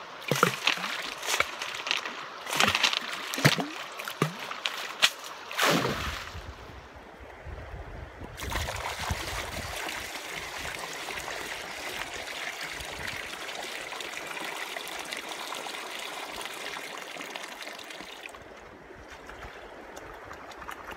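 Sharp splashes and knocks of water and gear being handled in a shallow creek for the first six seconds. From about eight seconds in comes a steady pour of muddy water from a plastic bucket into the river. It fades near the end.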